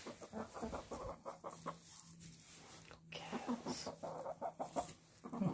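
Domestic hens clucking at close range: a string of short clucks, with a brief lull about two seconds in.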